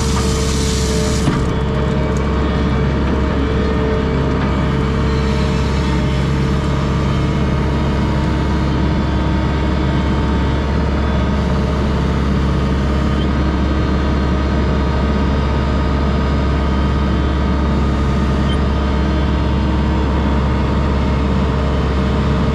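Diesel engine of a piece of heavy equipment running steadily, with a steady whine over it and a short hiss about a second long at the start.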